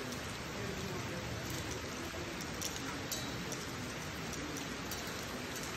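Steady rain falling on an asphalt street, an even hiss with a few sharper drop ticks about halfway through.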